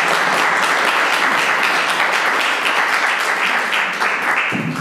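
Audience applauding after a speech, with dense hand-clapping that dies away near the end.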